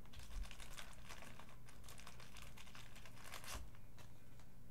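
Crinkling and rustling of trading cards and their plastic wrapping being handled, a dense run of small crackles that stops with a louder rustle about three and a half seconds in.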